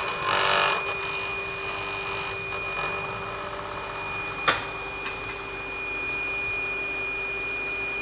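V-Guard RO water purifier running: its booster pump hums with a vibration while a steady high electronic beep sounds, the warning this unit gives when its UV lamp has failed. A single click about four and a half seconds in.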